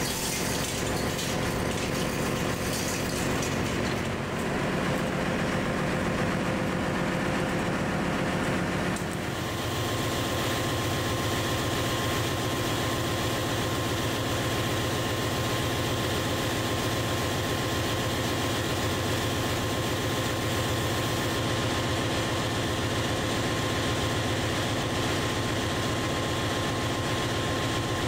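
Steady drone of a ship's engine-room machinery running. The sound changes abruptly about nine seconds in, and a steady high hum joins it from there.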